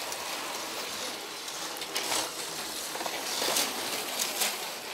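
Motorised Lego trains running on plastic track: a steady rattling hiss of wheels and motor, with a few louder clicks about two, three and a half and four seconds in.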